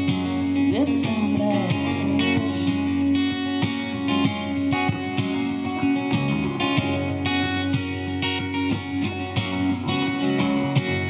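Instrumental passage of an acoustic guitar strummed in a steady rhythm, with a Fender Bass VI playing underneath. The strumming stops on a last chord at the very end.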